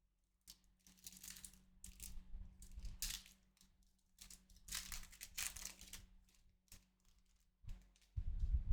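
Foil trading-card pack wrapper being torn open and crinkled, in several short rustling bursts, with a low rumbling bump of handling near the end.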